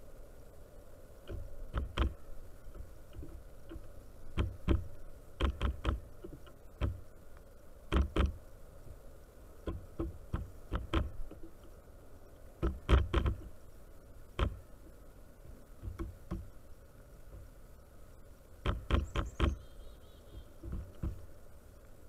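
Pileated woodpecker's bill pecking and tapping at sunflower seed on a wooden platform feeder: irregular sharp knocks, some single and some in quick clusters of two to four, spaced a second or two apart.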